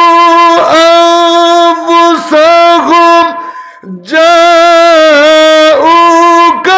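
A man chanting loudly through a microphone in long held, ornamented notes, a devotional chant of the kind that draws out 'Allah'. About three and a half seconds in there is a short pause for breath before the next held phrase.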